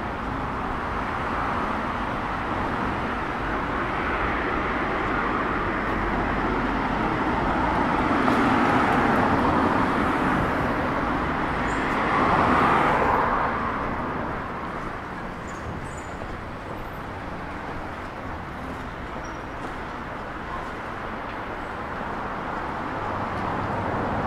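City street traffic: cars driving past on the road with tyre and engine noise. The noise swells twice near the middle as vehicles pass close, then settles to a quieter, steady traffic hum.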